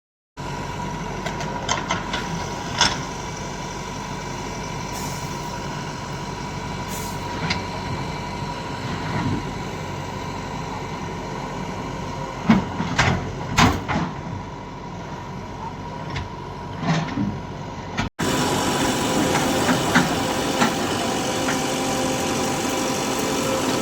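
Diesel engine of a JCB 3DX backhoe loader idling steadily, with a few sharp clicks and knocks over it. The sound cuts out for an instant about three-quarters of the way through, then carries on slightly louder.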